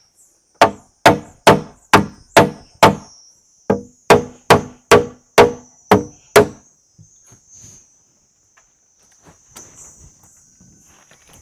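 Hammer blows on wood, most likely driving nails: a run of six strikes about two a second, a short pause, then seven more. A steady high buzz of insects runs underneath.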